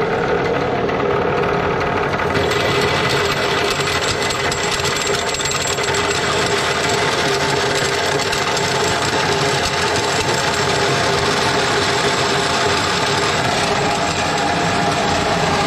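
Electric corn grinder (corn cracker) running loud and steady as dried corn kernels are fed into its hopper. About two seconds in, a harsher, brighter grinding joins the motor noise as the kernels begin to be cracked.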